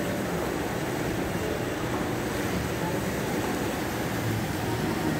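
Steady hum of a large indoor shopping-centre atrium: ventilation noise and a faint murmur of distant voices echoing.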